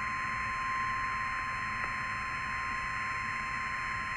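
NOAA Weather Radio warning alarm tone: one long, unbroken high beep near 1050 Hz over receiver hiss, the signal that a warning message is about to be broadcast.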